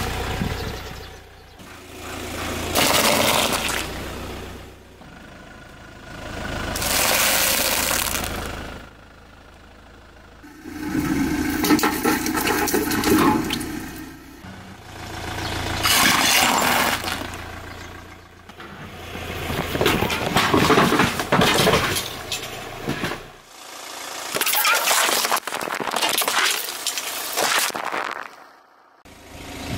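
A car tyre rolling over liquid-filled drink cartons and plastic bottles and crushing them, with the car's engine running. The crushing comes in about seven separate bursts of a couple of seconds each, with quieter gaps between.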